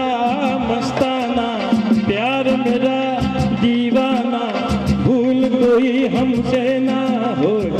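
A man singing a Hindi song into a microphone over an amplified backing track with percussion, drawing out quavering held notes.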